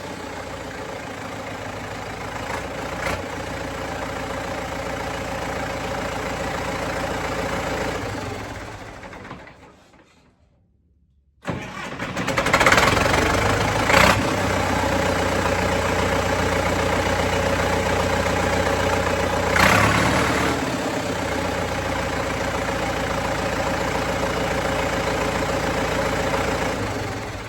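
Freshly rebuilt Case 770 tractor diesel engine running at a steady idle, with no knocking. The sound fades out about eight seconds in, is almost gone for a couple of seconds, then returns abruptly and runs on steadily with a couple of brief clicks.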